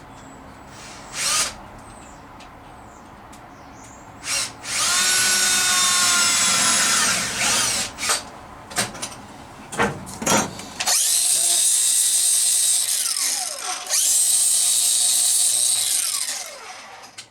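Electric drill drilling holes in a metal repair piece. It starts with short bursts on the trigger, then makes longer steady runs, and near the end the motor winds down with a falling whine.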